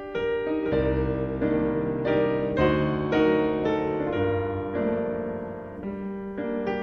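Background piano music: a gentle melody of single struck notes over sustained lower notes, about two notes a second.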